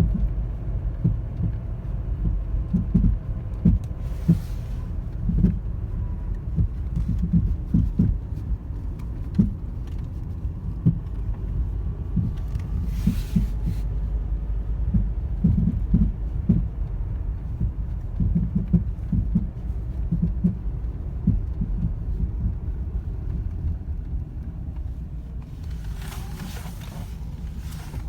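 2010 Toyota Corolla LE making a low thumping, popping noise: irregular short thumps, some in quick clusters, over a steady low rumble. The cause is a fault the owner has not identified.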